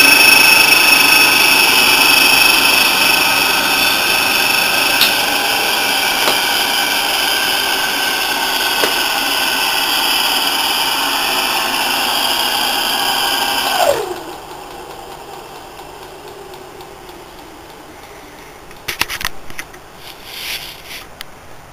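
Brook 2 hp single-phase capacitor-start electric motor running at full speed with no load, a steady whine over its hum. About two-thirds of the way through it is switched off: the whine cuts out with a short falling tone and the motor coasts down much more quietly, with a few clicks near the end.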